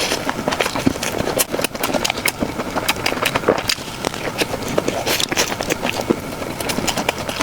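Close-miked eating sounds: a person chewing food, a dense run of quick mouth clicks and smacks that goes on without a break.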